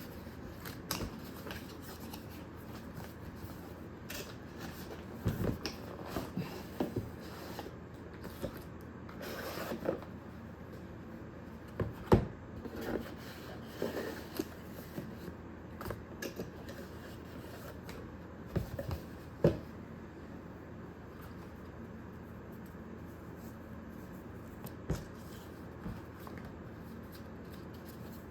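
Hands handling product packaging during an unboxing: irregular rustling of cardboard and plastic with scattered small clicks and knocks, a couple of sharper taps standing out.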